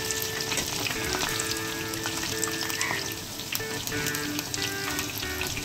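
Rice-batter fritters (chaul bara) deep-frying in hot oil: a dense, steady crackling sizzle. Soft instrumental background music plays over it.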